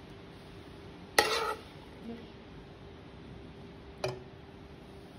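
A spoon scraping and clanking against a frying pan as diced browned bacon is scooped out and tipped into a stew pot. There is a sharp clatter about a second in and a lighter clink near the end, over a faint steady hum.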